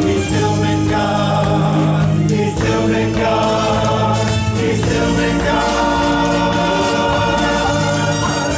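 Mixed church choir singing a gospel song in harmony, holding long, sustained notes over a steady low bass.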